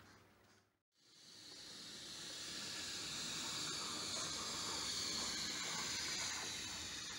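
Steady steam hiss from a model steam locomotive. It begins just after a brief gap about a second in, swells over the next couple of seconds and then holds.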